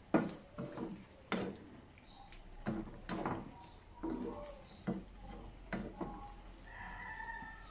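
Wooden spatula stirring chunks of chicken and pork through a thick sauce in a nonstick frying pan, with an irregular scrape or knock against the pan about once or twice a second.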